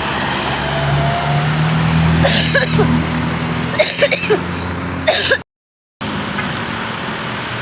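A bus engine running steadily close by, its hum rising a little about a second and a half in, with a few brief voices over it; the sound drops out completely for about half a second near the end.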